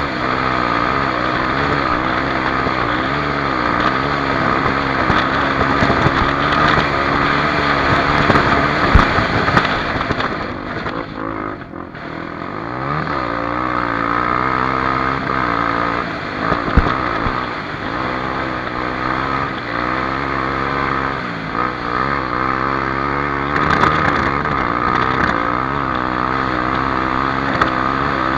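Honda XR250 Tornado's single-cylinder four-stroke engine running on the move, its revs rising and falling with throttle and gear changes. The revs drop away briefly about twelve seconds in, then build again.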